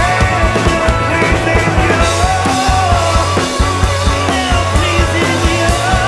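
Rock band playing: drums keep a steady, fast beat under electric guitars and keyboard.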